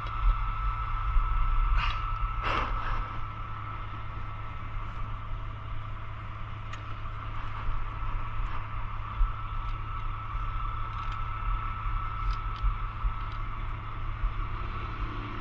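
Fire truck's engine running steadily, heard from the top of the ladder as a low hum with a steady high whine over it. Two sharp knocks about two seconds in as the metal ladder-pipe nozzle is handled.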